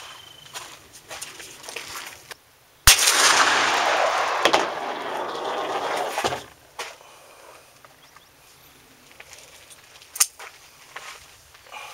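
A single shot from a Taurus Raging Bull .44 Magnum revolver about three seconds in, a sharp crack followed by about three seconds of loud rumbling noise that fades away; the bullet clocks 1470 fps over the chronograph. A shorter, quieter crack comes near the end.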